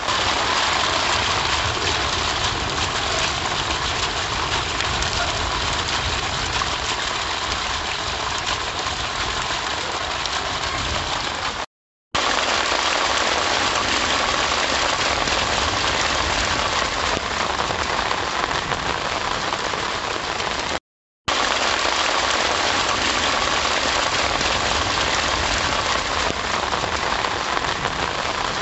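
Rainwater gushing from a white plastic pipe and splashing onto a brick ledge and puddled ground, mixed with rain falling on the wet ground: a steady, dense splashing hiss. It cuts out completely for a split second twice, about a third of the way through and again about three quarters of the way through.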